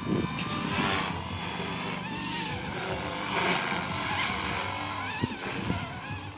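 Stock 230S RC helicopter flying 3D manoeuvres, its rotor and motor whine rising and falling in pitch as the flight changes.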